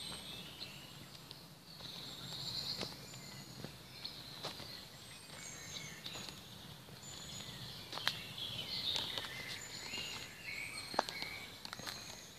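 Small birds singing and twittering in short repeated phrases, with footsteps on a garden path heard as scattered clicks, two of them sharper in the second half.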